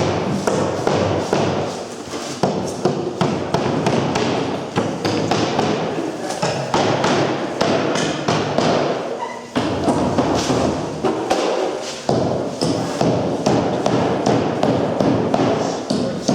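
Rapid, continuous clatter of knocks, taps and thumps from dismantling work, with no clear pauses.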